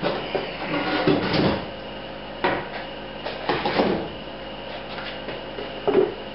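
Irregular wooden knocks and clunks, a few spaced over several seconds, as framing lumber and tools are handled.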